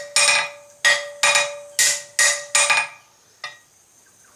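Hand hammer striking steel six times at about two blows a second, with the metal ringing on under the blows, then one lighter tap. This is the 8 mm pin stock being tapped into the drifted rivet hole of a forged tong blank.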